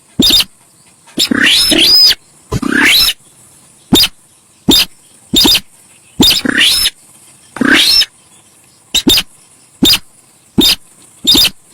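Sintar sawah bird calling, as played for a bird-lure recording: a run of loud, abrupt calls about one a second, mostly short, with a few longer harsh ones carrying rising notes.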